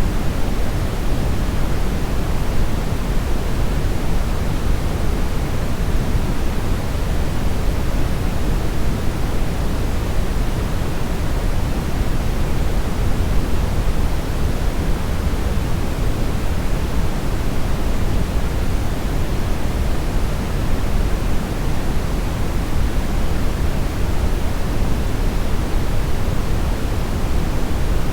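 Synthesized brownish noise: a steady, even hiss-rumble, heaviest in the bass and thinning toward the treble, with no changes.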